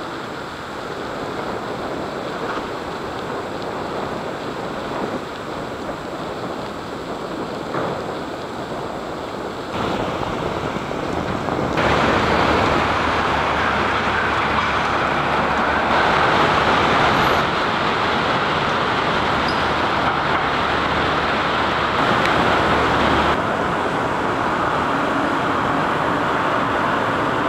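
Steady city street noise with traffic, an even rushing hum that grows louder about ten to twelve seconds in and shifts in level abruptly a few times after that.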